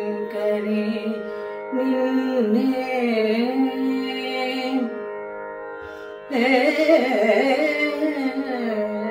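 A woman singing a Carnatic composition in raga Pantuvarali over a steady drone, holding long notes that she bends and slides in gamakas. Her voice drops out for about a second just past the middle, then comes back louder.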